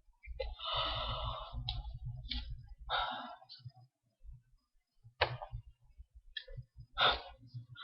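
A person's sneezes and hard, breathy exhalations. Several bursts come in the first three seconds, the first and longest lasting about a second, then a sharp one about five seconds in and another near the end, with low thumps underneath.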